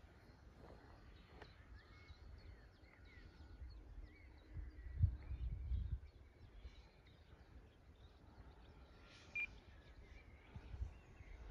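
Wind buffeting the microphone in gusts, loudest about five seconds in, with faint bird chirps and a single short electronic beep about nine seconds in.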